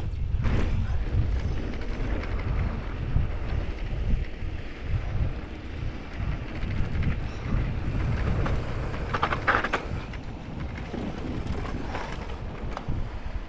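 Wind buffeting the microphone over the rumble and rattle of a Norco Sight VLT electric mountain bike's tyres and frame on a bumpy dirt trail. A brief, harsher burst of noise comes about nine seconds in.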